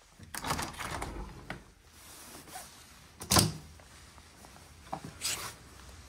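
A balcony door being opened by hand: a clatter of the handle and frame in the first second and a half, then a sharp knock about three seconds in, the loudest sound, and a shorter knock near the end.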